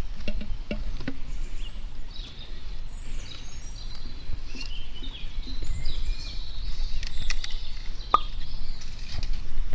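Birds chirping and calling, with one louder rising call near the end, over a steady low rumble and the rustle and scattered clicks of hands working coconut palm fronds and spathe.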